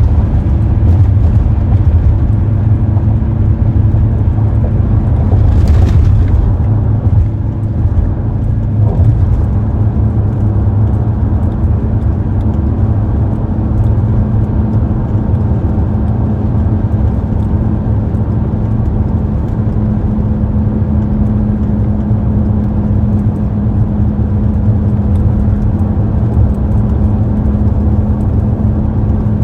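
A car driving at speed: a steady low road-and-engine rumble, with a brief hiss about six seconds in.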